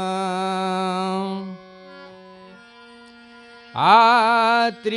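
Male voice holding the end of a bhajan line over a harmonium, then the harmonium alone sustaining steady reed notes for about two seconds, before the voice comes back in, sliding up in pitch near the end.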